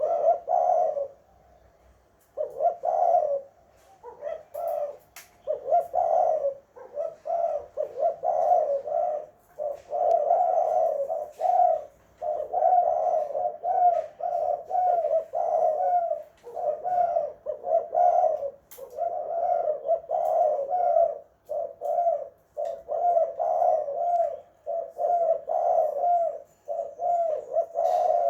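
Spotted dove (tekukur) cooing over and over, phrase after phrase with hardly a break after a short pause a second or two in.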